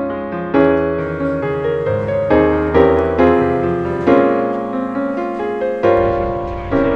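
Background piano music: gentle chords struck and left to ring, with a new chord or note every half second or so.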